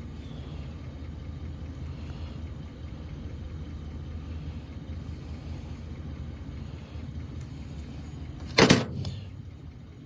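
A steady low mechanical rumble, with one sudden loud sharp crack or clack about eight and a half seconds in that fades within about half a second.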